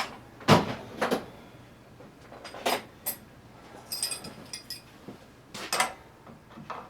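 Steel hand tools, sockets and wrenches, clinking and clacking as they are picked up and tried for size: a handful of sharp clanks, with a brief metallic ringing jingle around the middle.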